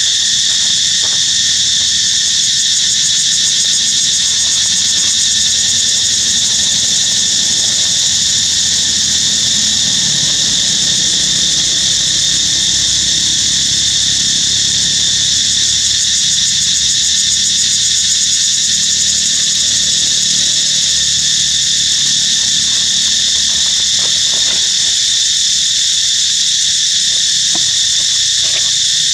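Dense insect chorus: a loud, steady, high-pitched drone of many insects, with several pitches layered and no letup.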